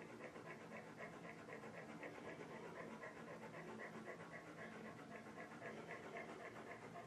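Faint, fast, steady panting from an animal, about four breaths a second.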